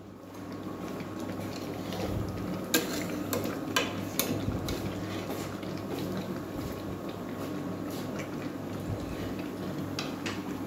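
A spatula stirring a thick chicken and potato curry in a metal pot, with a few sharp clinks of the spatula against the pot about three to four seconds in and another near the end.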